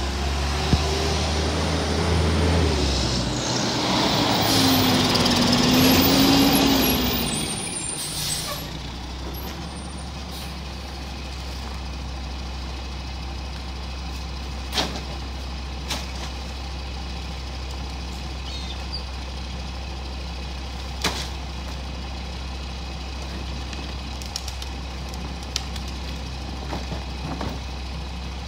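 Mack MR rear-loader garbage truck pulling up, its engine pitch rising and falling, then stopping with a hiss of air brakes about 8 seconds in. After that its engine idles steadily, with a few sharp knocks as bags and a cart are handled at the rear hopper.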